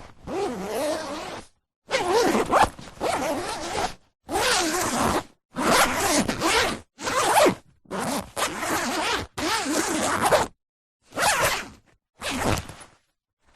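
A zipper being pulled open and shut again and again: about ten separate zips, each under a second and a half, with short silences between them.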